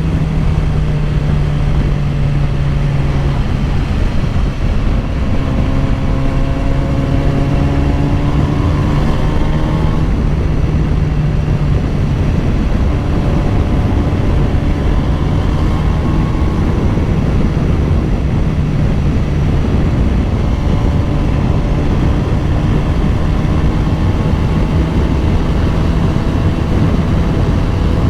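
2010 BMW S1000RR's inline-four engine running at a steady, held speed under way, its pitch drifting only slightly, over a constant low rumble.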